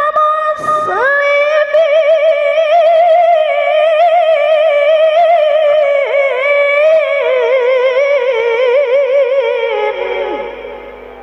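A woman reciting the Quran in the high, melodic qari'ah style through a microphone, holding one long note full of quick wavering ornaments after a short breath about half a second in. The pitch dips and falls away near the end as the phrase closes and the voice fades.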